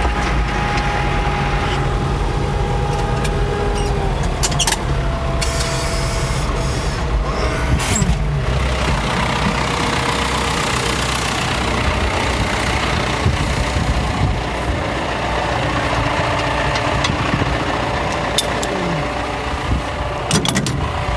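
Farm tractor engine running steadily, with a thin whine above it that changes pitch a few times.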